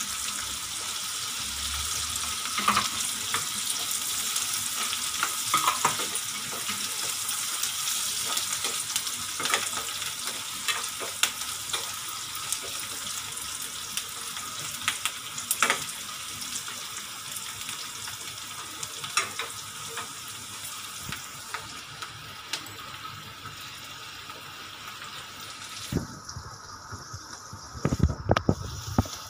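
Chopped onion and capsicum sizzling in hot oil in a kadhai, stirred with a spatula that clicks and scrapes against the pan, with a cluster of louder knocks near the end.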